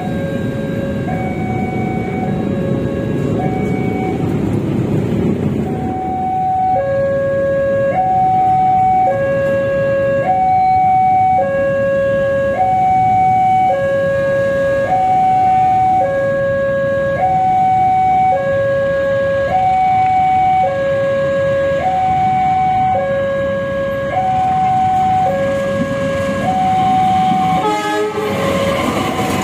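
Railway level-crossing warning alarm sounding a two-tone chime, alternating a higher and a lower note about one pair every two seconds, the signal that a train is approaching. A passing train rumbles under it for the first few seconds, and near the end the approaching locomotive and train noise come in.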